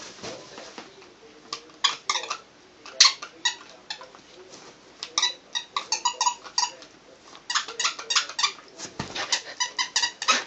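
A squeaky dog toy being squeezed as a dog plays with it, sounding in irregular quick runs of short, high squeaks with pauses between the runs.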